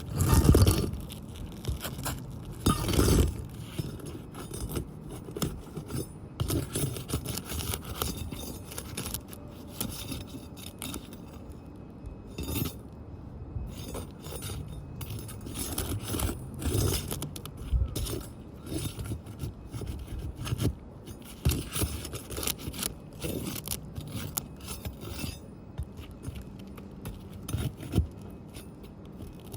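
Flat bar scraping and clinking against asphalt shingles as their adhesive seal strips are broken loose for a shingle replacement, with irregular metal clinks. There are two louder knocks in the first few seconds.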